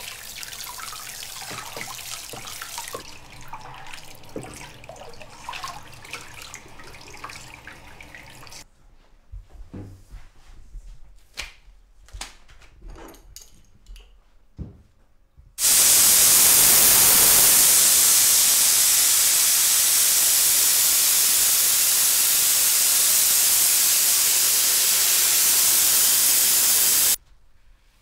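Water spraying onto a copper photogravure plate in a sink for the first eight seconds or so, then a few light knocks and clicks of handling. Then a loud, steady hiss sets in for about eleven seconds and cuts off suddenly.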